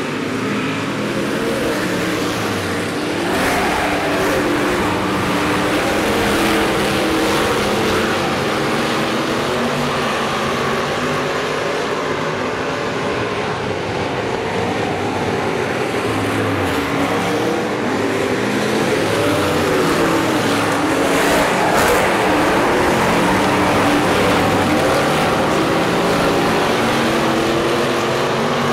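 Several Hobby stock race cars running laps on a dirt oval. Their engines overlap, each rising and falling in pitch as they accelerate and lift through the turns, with no break.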